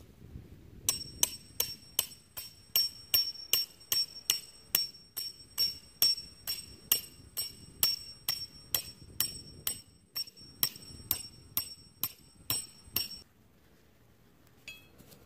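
A steel tent peg being hammered into the ground: a steady run of sharp metallic strikes, about two to three a second, with a high ring carrying between blows. The strikes stop a couple of seconds before the end.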